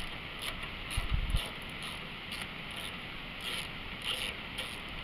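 A Torx T30 driver unscrewing the carburetor mounting bolts on a Briggs & Stratton Intek engine, with a few faint clicks, over steady wind noise on the microphone. A low thump comes about a second in.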